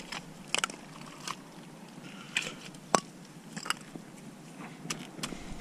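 Irregular sharp knocks and clicks of a paua being worked on a shore rock, struck with a hand-held stone and prised with a plastic paua knife. About eight separate strokes, unevenly spaced.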